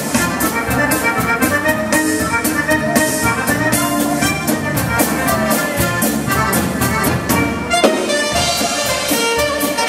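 Live band playing a polka: a saxophone carries the tune over a drum kit's steady beat.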